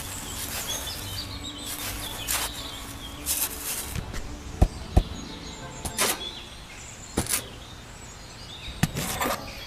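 Small bricks and tools being handled: irregular short scrapes and sharp clicks a second or so apart, with two crisp clicks close together near the middle. Birds chirp faintly in the background.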